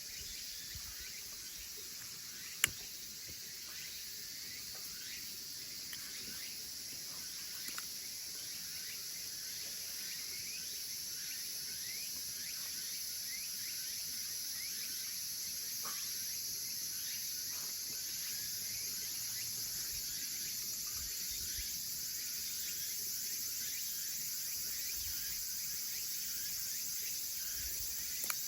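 Steady high-pitched insect chorus, with many faint short chirps over it and one sharp click about two and a half seconds in.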